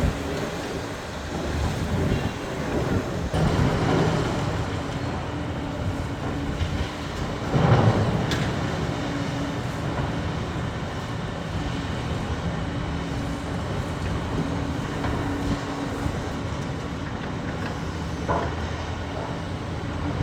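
A heavy engine running steadily, with a short louder surge about eight seconds in.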